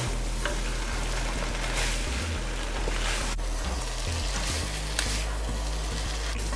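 Chow mein noodles and spinach sizzling in a hot wok as they are tossed with a spatula, with a few sharp taps of the spatula against the pan.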